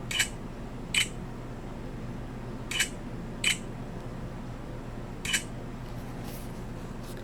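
A camera shutter clicks five times at uneven intervals as photos are taken. A steady low hum runs under it.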